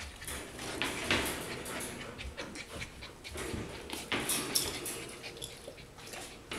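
Four-week-old golden retriever puppy panting in noisy breaths, with short scuffling and rustling as the puppies move on the blanket.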